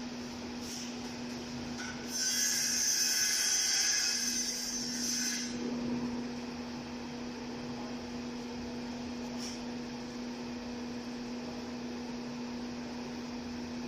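Power drill running for about three seconds with a high whine, starting about two seconds in, over a steady low hum.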